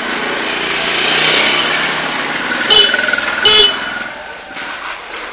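A motorcycle horn gives two short beeps in quick succession, the second slightly longer, over a rush of vehicle noise that swells and then eases.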